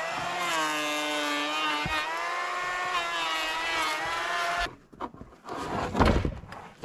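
Two-stroke chainsaw running at high revs, rising in pitch at the start and holding steady, then cutting off abruptly after about four and a half seconds. A few knocks follow near the end.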